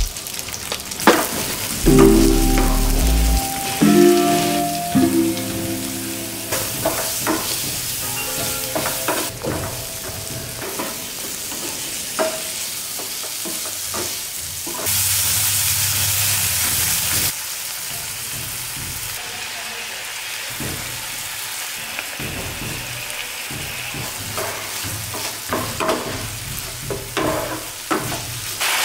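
Onions, green capsicum and paneer cubes sizzling in oil in a nonstick frying pan, stirred with a wooden spatula that scrapes and knocks against the pan many times. The sizzle gets louder for about two seconds a little past halfway.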